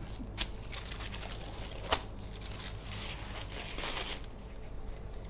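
Baking paper rustling and crinkling in several short bouts as it is handled over a sheet of chilled, frozen-firm dough, with a sharp tap about two seconds in.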